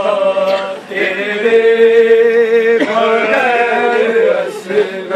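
A man singing a noha, a Muharram mourning lament, in long drawn-out held notes that waver and bend in pitch, with short breaths about a second in and near three seconds.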